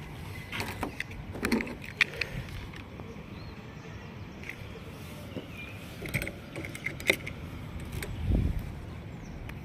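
A bunch of car keys with remote fobs jingling and clinking against the metal bonnet of a car as they are picked up and handled, with sharp clinks about two seconds in and again about seven seconds in. A low thump near the end.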